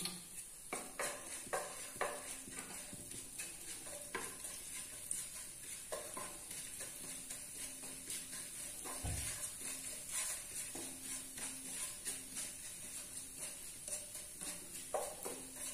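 Crushed coriander, fennel and cumin seeds sizzling in hot oil in a nonstick frying pan, stirred with a wooden spatula that scrapes and taps against the pan many times.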